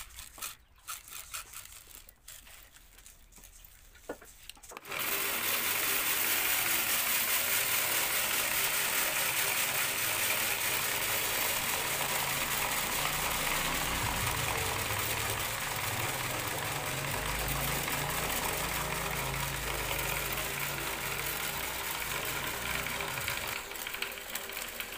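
Wheat grains being poured into the hopper of a small homemade seed-cleaning machine, with light scattered clicks, then about five seconds in the machine is switched on and its small motor shakes the perforated metal sieve, the grain rattling steadily as it runs.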